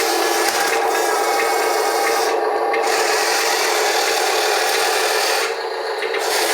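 Wheel loader working an earth slope: a steady machine drone with rasping, scraping noise from the bucket working the ground, the scraping dropping out briefly twice.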